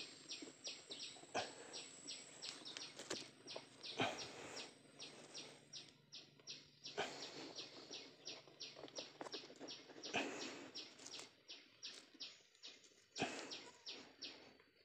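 Digging in dry soil at a burrow: scrapes and knocks of earth every few seconds. Under it, a high chirping call repeats steadily about four times a second.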